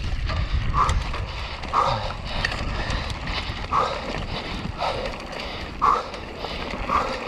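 A mountain biker breathing hard under exertion, with a loud panting out-breath about once a second. Under it are wind on the microphone and the tyres rolling over a dusty dirt track.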